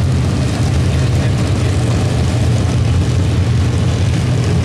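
A pack of dirt-track modified race cars running together at low speed, a steady, loud, low engine rumble.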